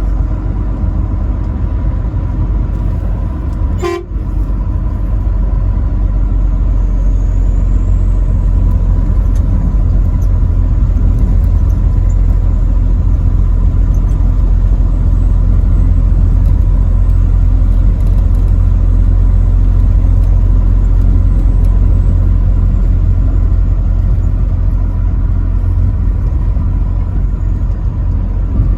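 Truck on the road: a loud, steady low rumble of engine and road noise, with a faint steady high tone over it. A short break with a click comes about four seconds in.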